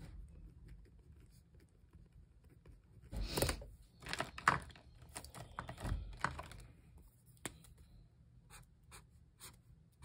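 Pen writing on planner paper, with a short rustle of paper being handled about three seconds in and several small clicks and taps of pen and stationery.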